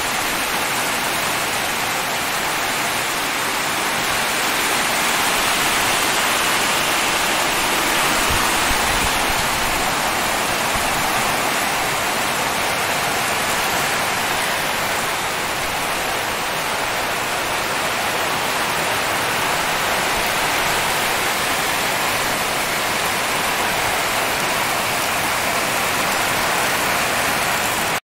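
Heavy rain falling steadily: a dense, even hiss of drops on roofs, walls and ground.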